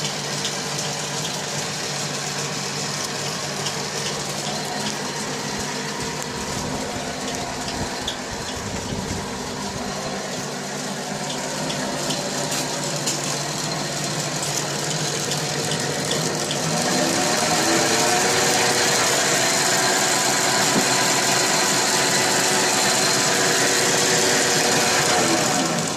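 Small home-built lathe running, driven by a treadmill DC motor on a homemade speed controller: a steady motor hum and whine over a hiss. About two-thirds of the way in, the whine rises in pitch and gets louder as the spindle speeds up, then holds at the higher speed.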